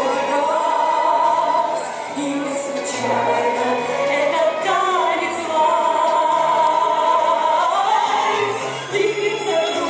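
Dance music with singing: long held sung notes with vibrato over a stepping bass line.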